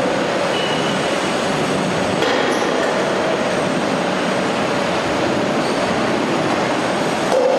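Apple sorting and packing line running: a steady mechanical noise of roller conveyors and drive motors with a constant hum.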